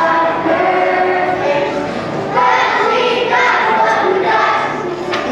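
A class of second-grade children singing a song together as a choir, holding notes and moving from note to note.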